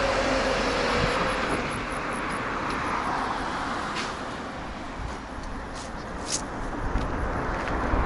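Road traffic outdoors: a car passing on the road and fading away over the first few seconds, over a steady outdoor noise, with a couple of faint clicks later on.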